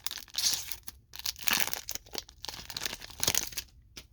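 Foil hockey card pack wrapper being crinkled and torn open by hand, in irregular bursts of crackling.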